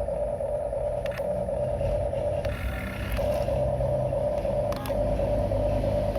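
Electric motors of a Huina radio-controlled excavator whining steadily, with a few sharp clicks and a brief change in the motor note about halfway through.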